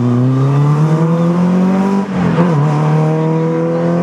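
Rally car engine accelerating hard, its revs climbing for about two seconds, then a quick upshift and the revs climbing again.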